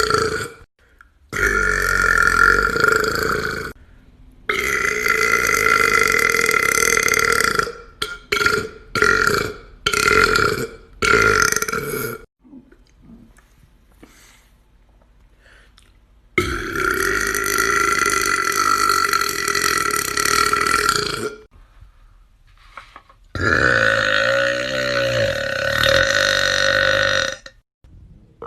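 A string of loud, drawn-out burps from a man. Several long burps last a few seconds each, with a quick run of short burps in the middle and a few seconds' pause before the last two long ones.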